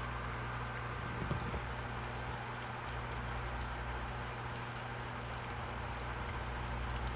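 Steady low hum under a faint, even watery hiss, with a couple of light knocks just over a second in.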